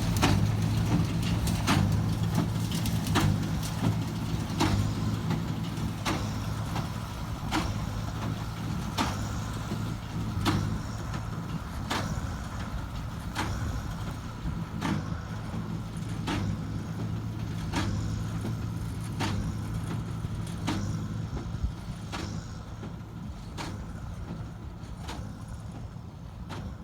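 Tractor engine running steadily while working a hay baler, with a sharp knock about every one and a half seconds. The sound grows gradually fainter.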